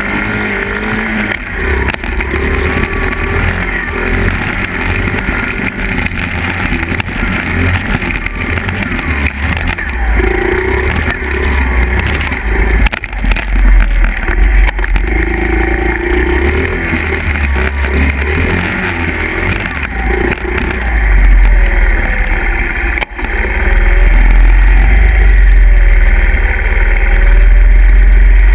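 Small Honda 50cc four-stroke single-cylinder dirt bike engines running on a trail ride, the revs rising and falling with the throttle. In the last few seconds a louder, steadier low rumble takes over.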